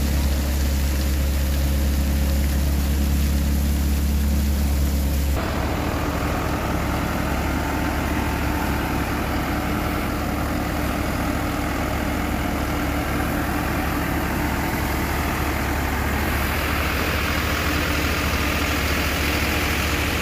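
A New Holland tractor's diesel engine runs steadily, driving a grain thresher that is threshing and blowing out chaff. The machinery makes a continuous drone. About five seconds in, a strong low hum gives way to a broader, noisier whir.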